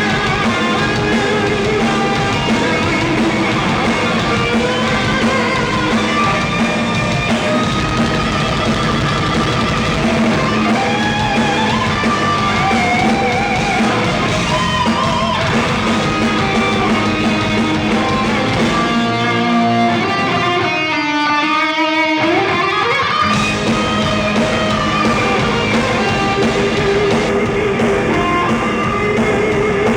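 Instrumental heavy rock band playing live, with a lead electric guitar over bass and drums. About twenty seconds in, the drums and bass drop out for a few seconds, leaving the guitar alone on a note that wavers and dips in pitch, and then the full band comes back in.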